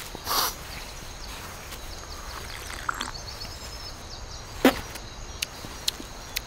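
A man sniffing once, a short noisy breath in, about half a second in, with faint bird chirps in the background. A little before five seconds in comes a single sharp click, followed by a few fainter ticks.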